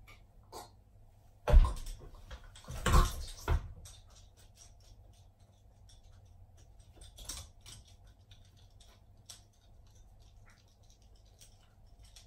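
A person collapsing onto a hard wooden floor: a heavy thump about a second and a half in, then two more thumps around three seconds in. After that, faint scattered clicks of a dog's claws on the floor as it walks around.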